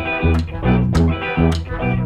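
Band playing an instrumental tune: a low, pulsing bass line under sustained melody notes, with a steady beat of drum strikes about every half second.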